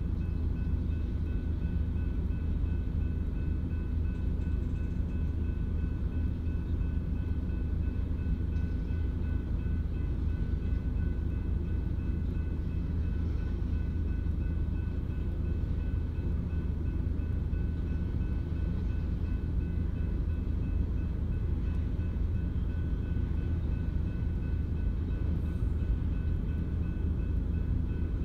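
A slow freight train of tank cars rolling past a level crossing: a steady low rumble, muffled as heard from inside a car.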